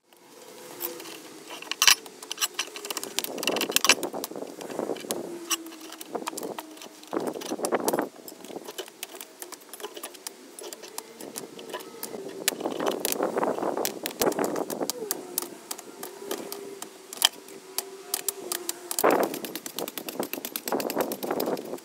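Digging and hand-tool work: a spade and tools scraping and clinking against soil, gravel and concrete in irregular strikes, with a low wavering hum under much of it.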